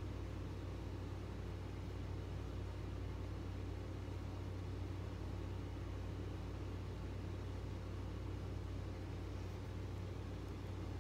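Steady low hum with a faint hiss over it.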